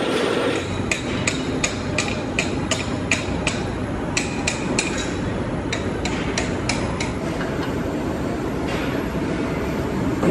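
A run of sharp metallic knocks, about three a second with a couple of short pauses, that stops about three seconds before the end. They sound over the steady running noise of workshop machinery.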